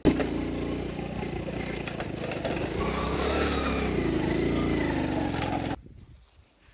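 Motorcycle engine running, its pitch rising and falling about halfway through; the sound cuts off abruptly near the end.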